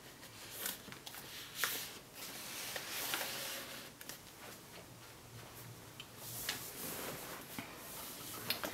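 A large hardcover book slid back into a row of books on a shelf: cardboard and paper scraping against the neighbouring books, with scattered light taps as the spines are pushed straight.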